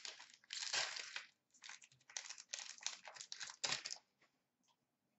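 Plastic card-pack wrappers and cards crinkling as they are handled: a quick run of dry crackles for about four seconds that then stops.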